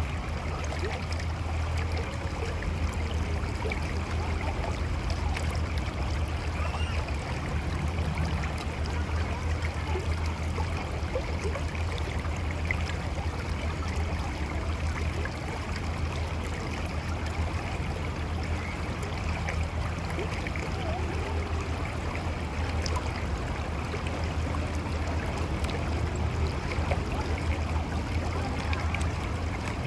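Mountain river flowing over rocks: a steady rush of water with gurgling and a low rumble underneath.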